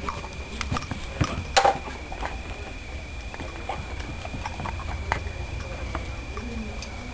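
Weimaraner puppy scrambling and pouncing after ice cubes, paws and body hitting the floor in scattered clicks and knocks, the loudest about one and a half seconds in.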